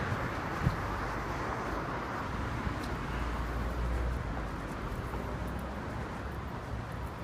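City street traffic noise: a steady hum of cars on the road nearby, with a low rumble for a second or so around the middle.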